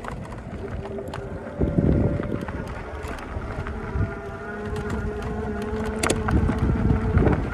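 Electric fat bike riding over a bumpy dirt-and-grass track: wind rumbling on the microphone and tyre noise with sharp rattling knocks from the bumps, over a steady whine from the electric motor.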